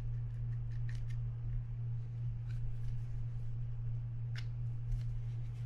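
Parts of a Penn Spinfisher 550SSG spinning reel being handled by hand: a few light clicks and scrapes as fingers work the greasy rotor and its brake parts, over a steady low hum.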